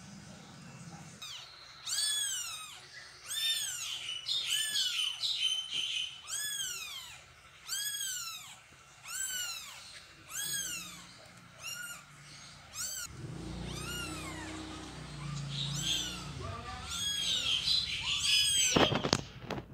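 Young kittens mewing over and over, short high thin cries about one and a half a second, breaking off past the middle and starting again near the end. A sharp knock just before the end.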